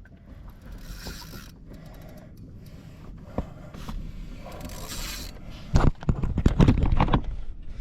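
Spinning fishing reel clicking and rattling as line is worked against a hooked tarpon, with a burst of louder clicks and knocks about six seconds in.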